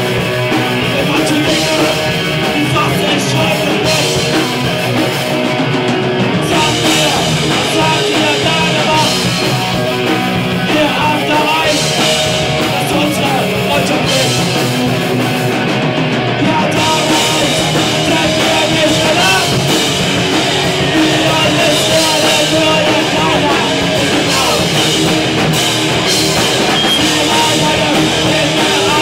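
Rock band playing live and loud: electric guitars through amplifiers and a drum kit, in a heavy punk-metal style, dense and unbroken.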